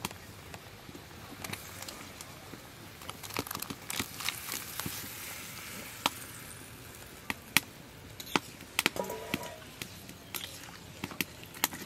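Curry simmering in a steel kadai over a wood fire, with boiled potatoes tipped in from a metal bowl midway. A metal ladle then stirs the pot, giving scattered sharp knocks and clinks against the pan.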